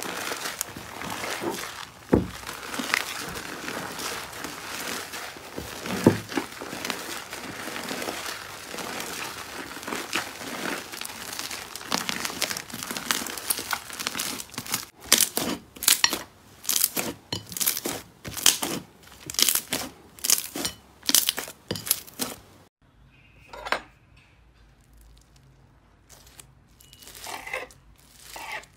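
Hands squeezing, stretching and folding a large lump of thick orange slime: steady sticky crackling and popping, turning after about fifteen seconds into separate squelches about twice a second. Near the end it goes much quieter, with a few crackles from a purple foam-bead slime being pressed.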